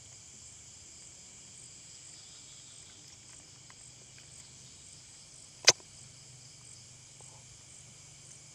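Steady high-pitched chorus of night insects chirping, with one sharp click about five and a half seconds in.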